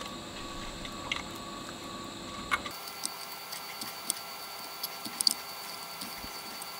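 Scattered faint clicks and small crackles from hand-soldering pins on a circuit board with a soldering iron and solder wire, over a steady faint background hiss; the sharpest clicks come about two and a half seconds in and again around five seconds in.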